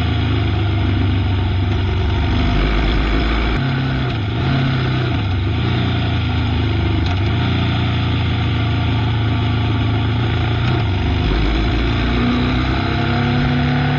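Motorcycle engine running at road speed under steady wind rush, its note shifting in pitch a few times and rising near the end as it accelerates.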